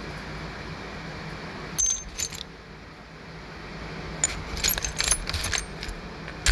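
Small steel screw extractors (easy outs) clinking against each other and their case as they are handled: a few metallic clicks about two seconds in, then a longer run of clinks near the end, over a steady low hum.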